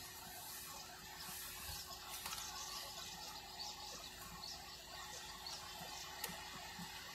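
Faint, steady hiss of a car cabin, with a low steady hum underneath and a few light clicks.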